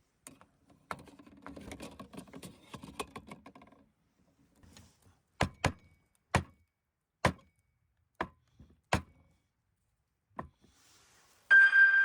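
Light clattering, then seven sharp separate knocks at uneven spacing, then near the end a loud clink that rings on at one high pitch, like metal or glass struck.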